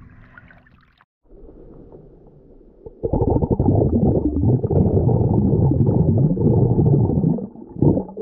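Muffled water gurgling and sloshing around a submerged camera in shallow water. It turns loud about three seconds in and drops away near the end.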